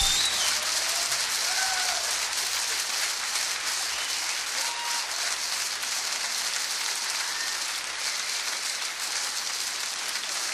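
Audience applause with a few short whistles, a dense crackle that slowly fades away, following a live song recording.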